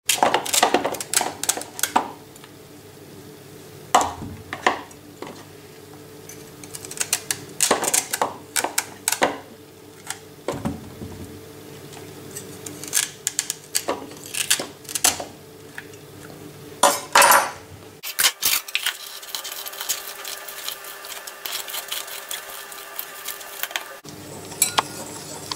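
Crisp cuts and snaps of fennel stalks being trimmed off the bulb with a kitchen knife, in a string of sharp clicks and knocks as pieces drop into a plastic bowl. After about 18 seconds it gives way to quieter, fainter clinks over a steady hiss.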